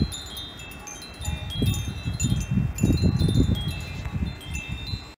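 Wind chimes ringing in gusty wind, their thin high notes sounding one after another. Underneath, the wind buffets the microphone in low, uneven rumbles. The sound cuts off abruptly at the end.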